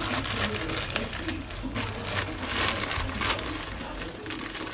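Plastic courier mailer pouch crinkling and rustling in irregular crackles as it is handled and pulled open.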